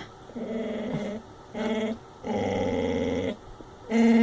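Dog growling and moaning in drawn-out pitched vocalisations, four in a row with short breaks, the last and loudest starting near the end: the dog's demanding 'possessed' noises as he begs for a sandwich.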